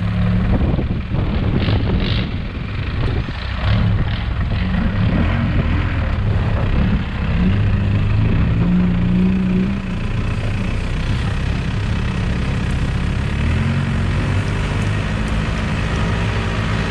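Off-road 4x4's engine running as it drives along a dirt track, its pitch rising and falling with the throttle. Several clattering knocks come in the first few seconds.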